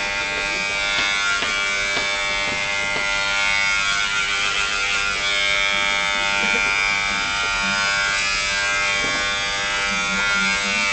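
Electric hair clipper buzzing steadily as it cuts hair on a man's head.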